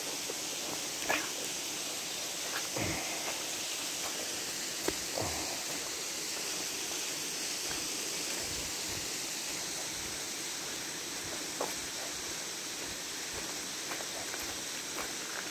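Steady rushing hiss of creek water running over rocks and riffles, with a few short knocks scattered through it.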